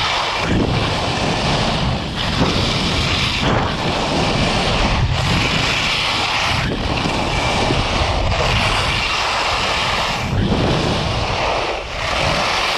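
Rushing noise of skiing downhill: skis hissing over the snow mixed with wind on the microphone, loud and continuous, dipping briefly about every one and a half seconds.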